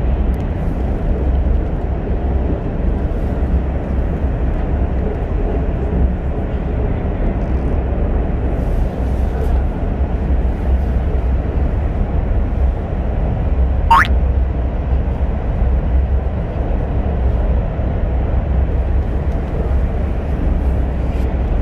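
Steady low rumble and hiss of a KTX high-speed train, heard from inside the passenger car. A single sharp click sounds about two-thirds of the way through.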